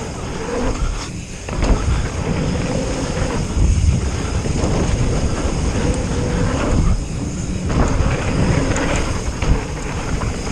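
Wind rushing over the camera microphone as a mountain bike is ridden on dirt, with tyre rumble and frequent knocks and rattles from the bike over bumps.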